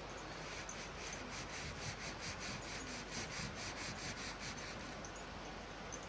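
Rhythmic rasping strokes, about three a second, starting about a second in and stopping near the end, over the steady rush of the river.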